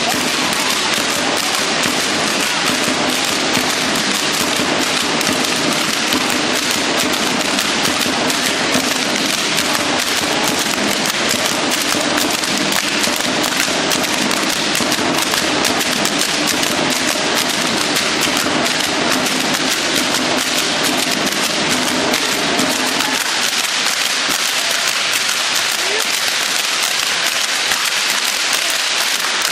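Matachines dancers' hand rattles and fringed costumes shaking with their stepping: a dense, continuous rattle of many rapid clicks from the whole troupe at once.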